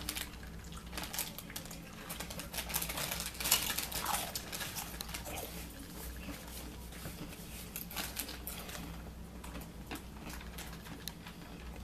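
Crinkling of a Doritos chip bag and crunching of tortilla chips being eaten, heard as irregular crackles and clicks that are thickest in the first few seconds, over a steady low hum.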